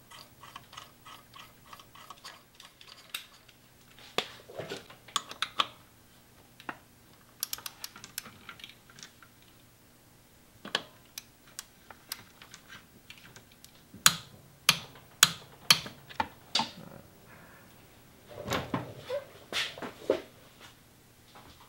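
Socket wrench turning the centre bolt of the Hall-sensor pulley on the crankshaft nose: scattered metal clicks and clinks, with a run of sharp clicks about two a second in the middle as the bolt is snugged down.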